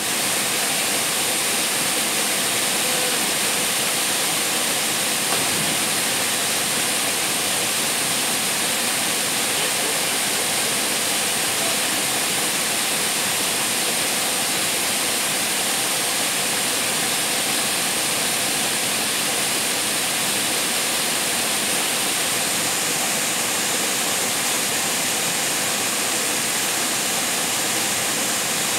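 Waterfall pouring into a rock pool: a steady, unbroken rush of falling water, with a thin, steady high-pitched whine above it.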